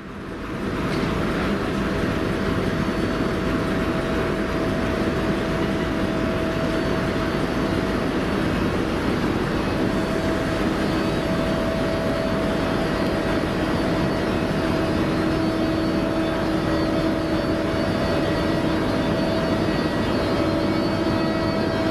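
A train pulling out of the station, running with a steady rumble and a steady whine, fading in over the first second.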